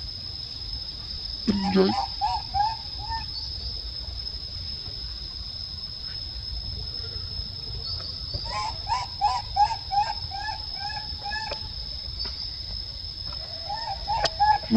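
Baby macaque calling in runs of short, repeated rising-and-falling cries: a few near the start, a long run of about ten in the middle, and more near the end. A steady high-pitched drone of insects runs underneath, and there is one short low sound near the start.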